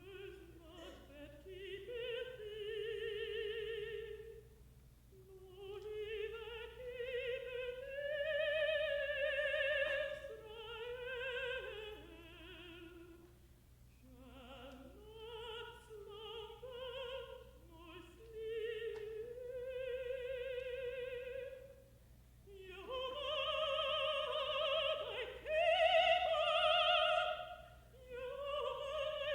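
Contralto singing long, slow phrases of a psalm setting with a wide vibrato, pausing between phrases, with little accompaniment to be heard. There is a faint low steady hum underneath, typical of an old broadcast recording.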